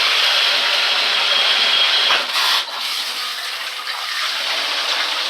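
Water running hard from a bathtub/shower faucet. About two seconds in the rushing drops and changes as the flow is switched to the other outlet: the newly replaced shower cartridge is diverting water as it should.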